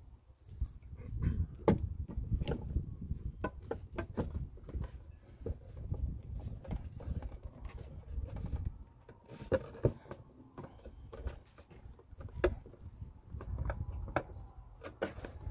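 Replacement batteries being pushed and worked by hand into a hard plastic battery case: scattered knocks, clicks and scrapes of battery against plastic, over a low rumble.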